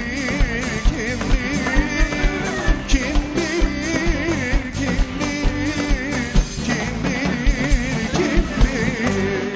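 A song plays with a steady drum beat, about two strokes a second, under an ornamented melody with a quick vibrato, in a Middle Eastern style.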